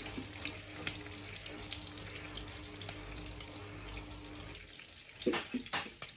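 Shrimps sizzling and crackling in hot oil in a frying pan, with a steady low hum that stops about four and a half seconds in. A few short knocks near the end as a spatula works the pan.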